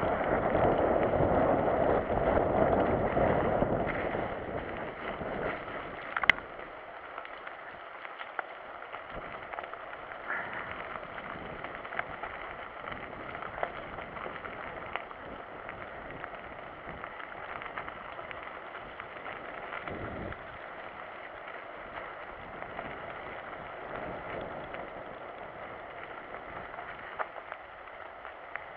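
Mountain bike riding along a dirt trail: a steady rush of tyre and wind noise, heavier for the first few seconds, with scattered small clicks and rattles from the bike.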